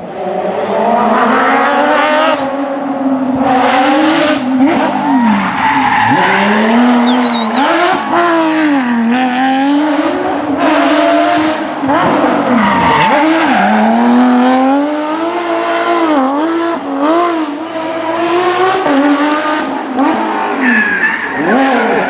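Porsche 911 GT3 rally cars' naturally aspirated flat-six engines at full throttle, the revs climbing hard and then dropping sharply every couple of seconds through gear changes and lifts, over several passes of the cars.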